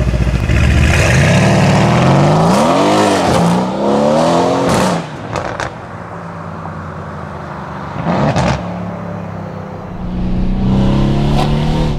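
Mercedes-AMG C63 S coupe's twin-turbo V8 pulling away hard, revs climbing, dipping at a shift and climbing again, then fading into the distance with a few sharp exhaust cracks. Near the end the engine drones steadily and louder again.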